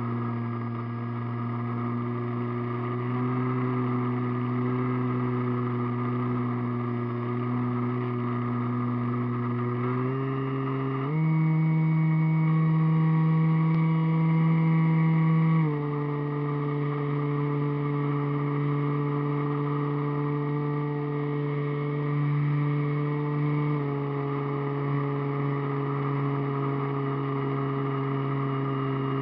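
Radio-controlled model airplane's motor and propeller running steadily, heard from the camera on board. The pitch steps up about eleven seconds in as the throttle is opened, holds for about five seconds, then drops back part way.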